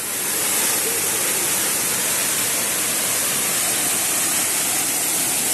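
Steady rush of water from a monsoon-fed forest waterfall, an even, unbroken hiss.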